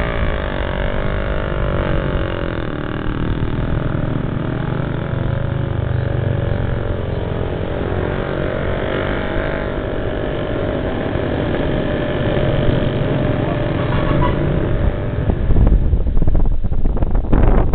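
An engine running steadily, its pitch shifting in the first few seconds and then holding level. Wind buffets the microphone in the last couple of seconds.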